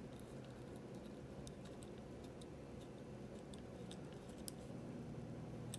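Faint, scattered small clicks and ticks as a Sailor push-pull ink converter's piston is worked in a fountain pen dipped in an ink bottle, drawing ink for a second fill. A low steady hum runs underneath.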